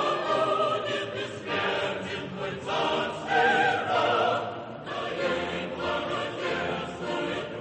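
Background operatic music with singing voices; the held notes waver with vibrato.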